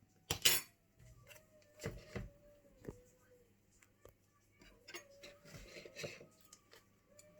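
Kitchen containers and utensils being handled as a tub of curry mix is opened and emptied into a jug: a clatter about half a second in, then a few separate knocks and some rustling.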